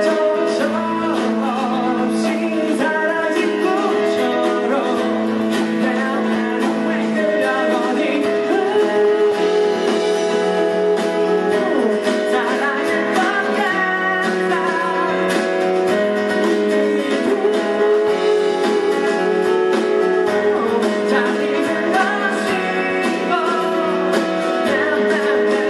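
A man singing live into a microphone while strumming a steel-string acoustic guitar.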